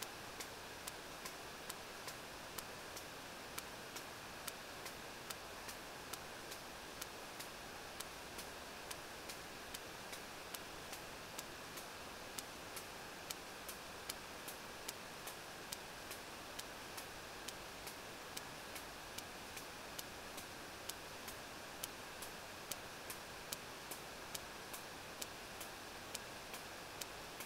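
Sperm whale's regular echolocation clicks picked up by a deep-sea hydrophone: sharp clicks about every two-thirds of a second over steady hiss, from a whale diving at around 800 m.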